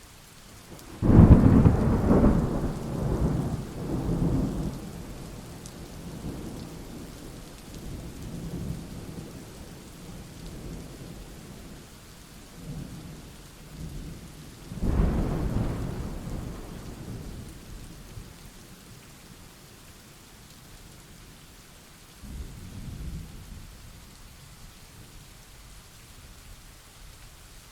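Thunderstorm: a loud thunderclap about a second in that rumbles on for several seconds, a second sharp clap about halfway through fading into rumbling, and a softer rumble near the end, over steady rain.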